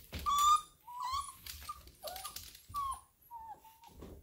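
Rhodesian Ridgeback puppies whining: a string of short, high whines, about six of them, the loudest about half a second in.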